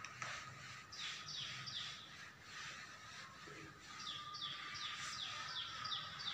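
Duster rubbing across a whiteboard in quick back-and-forth strokes, about three or four a second, in two spells, the second longer.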